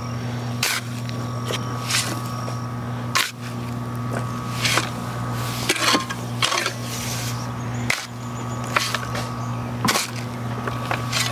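A shovel scraping and striking into soil and rocks, roughly one stroke every second, over a steady hum.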